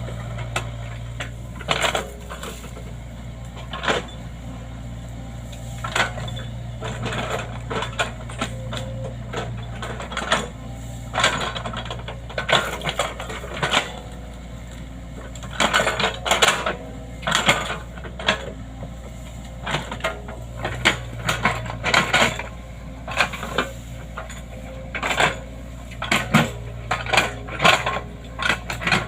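Excavator engine running with a steady low hum, with frequent irregular metallic clanks and knocks from the machine at work, coming thicker in the second half.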